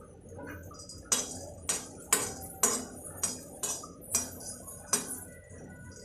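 Metal spoon clinking and scraping against a metal kadai, about two sharp strokes a second, as whole cloves are stirred while dry-roasting.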